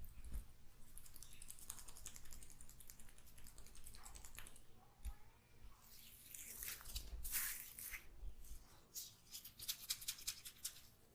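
Hands rubbing and working through oiled hair and scalp during a head massage, a dense, quiet crackling of many small clicks. It thickens after the middle and is loudest about seven seconds in.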